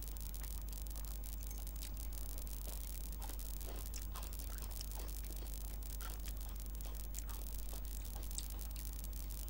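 Fingers mixing rice with chicken curry and pulling at a piece of chicken, heard as soft wet squishes and small scattered clicks. A steady low hum and hiss run underneath.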